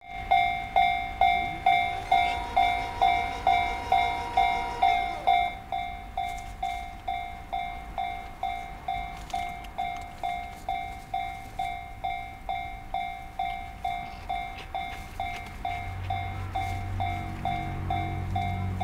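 Japanese level-crossing warning bell ringing over and over, about two dings a second, louder for the first five seconds. A second, higher tone rises and holds between about two and five seconds in. A low rumble of an approaching train builds near the end.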